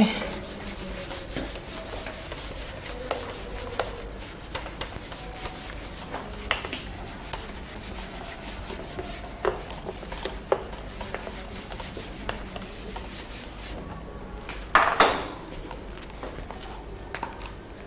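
Handheld whiteboard eraser rubbing back and forth across a whiteboard, wiping it clean, with scattered light knocks and one louder knock near the end.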